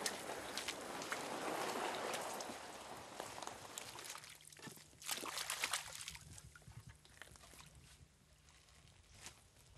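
Wooden canoe pushed through wet mud and into shallow water: a scraping, sloshing hiss for the first few seconds, then a cluster of knocks and splashes around the middle, fading toward the end.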